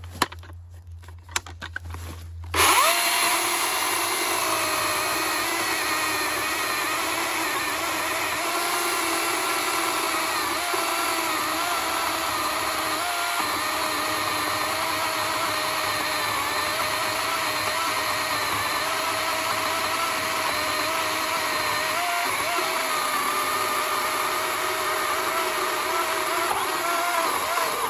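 DeWALT 54V FlexVolt brushless cordless chainsaw starting suddenly about two and a half seconds in, then running steadily under load as its chain cuts through a log of seasoned hardwood. Its motor whine wavers slightly as the chain bites.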